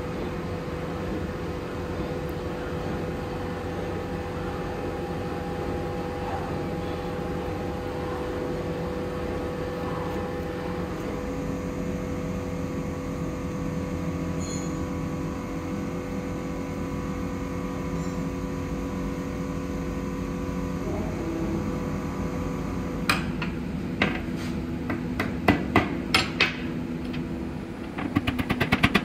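A workshop machine's motor running steadily with a hum. About three quarters of the way through, sharp knocks begin over it, coming more and more often and faster near the end.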